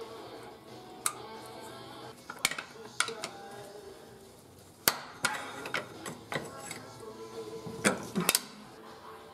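Background music with several sharp metal clinks and knocks scattered through it, a wrench working bolts on the underside of the vehicle.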